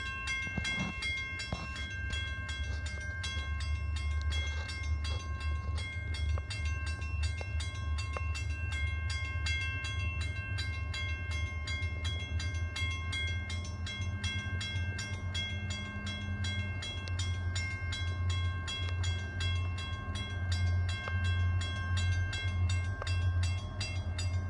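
Grade-crossing warning bell ringing with rapid, even strokes over the low, steady rumble of a train.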